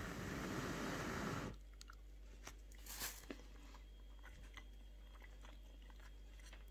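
A person chewing a mouthful of bread dipped in meat sauce, loudest over the first second and a half. After that come a brief crinkle about three seconds in and a few faint ticks from the plastic bag of bread being handled.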